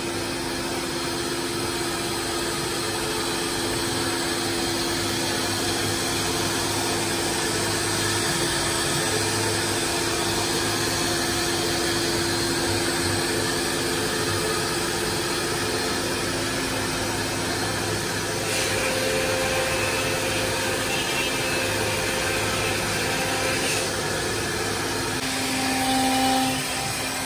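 Spindle motor of a ChenCan M1325AG CNC wood router running with a steady whirring whine while the gantry carries it over the bed. A hissier sound joins for several seconds past the middle, and a lower hum swells briefly near the end.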